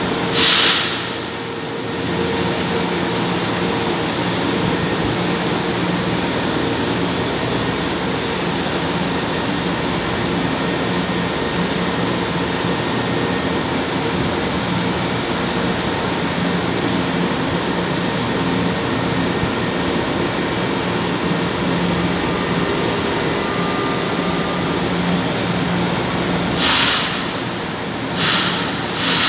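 São Paulo Metro train at the platform, its motors and equipment humming steadily. Short sharp hisses come about half a second in and three times near the end.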